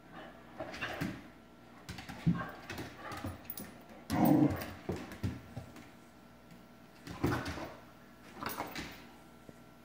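A young dog whining in short bursts, several times over, as it lunges at a bug, with claws clicking on a hardwood floor.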